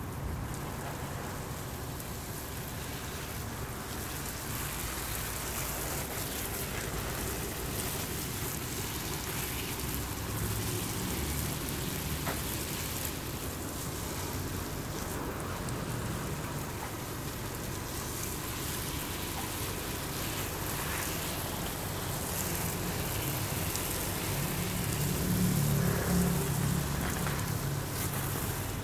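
Water from a garden hose spraying and splashing steadily onto leafy garden plants, with a low rumble swelling briefly near the end.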